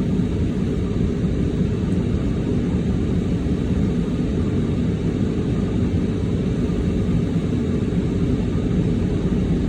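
Steady low rumble heard inside a car cabin, the car's engine running.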